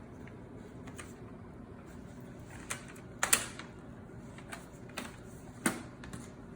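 Plastic snap clips of an HP Stream 14 laptop's bottom cover clicking loose as the cover is pried off: a string of separate sharp clicks, the loudest about three seconds in and another strong one near the end.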